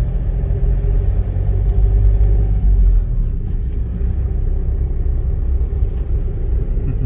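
Low, steady rumble of a vehicle's engine and tyres as it pulls into a yard.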